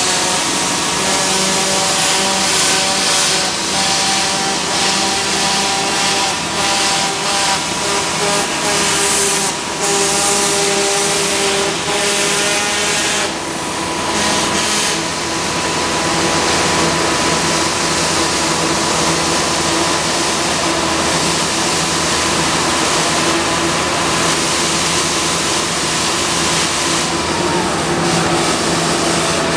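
Ultra-high-pressure water jet blasting old paint off a steel structure: a loud steady hiss that surges unevenly for a while, over the steady whine of the machinery. Near the end the whine drops in pitch.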